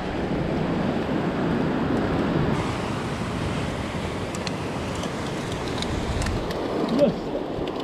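Sea surf washing against the rocks, with wind on the microphone, as a steady rush. A few faint clicks in the middle and a short louder knock about seven seconds in.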